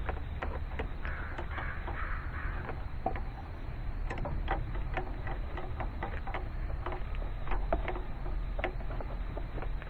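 Irregular metallic clicks and light taps of a wrench working a power steering high-pressure hose fitting, a few a second, over a low steady hum.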